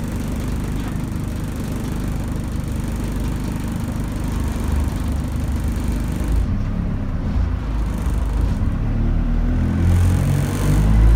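Dennis Dart single-deck bus's diesel engine heard from inside the saloon: idling steadily at first, then picking up and getting louder as the bus pulls away about halfway through.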